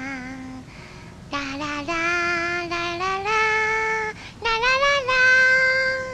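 A young girl singing a slow, wordless-sounding melody in long held notes. After a brief pause about a second in, the melody steps upward note by note.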